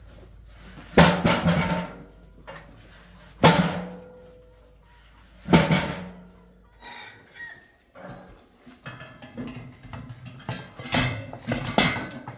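Galvanized sheet-metal pig feeder hopper being knocked and set down on concrete: three loud, hollow, drum-like metal bangs about two seconds apart, each ringing briefly. These give way to lighter rattling and scraping of metal.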